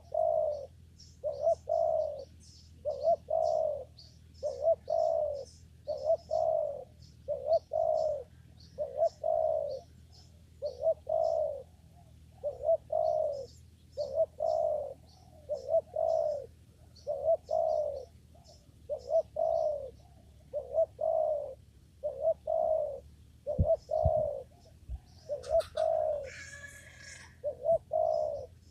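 Spotted dove cooing over and over, about one coo a second, while a small bird chirps thinly in the background. A brief rustle comes near the end.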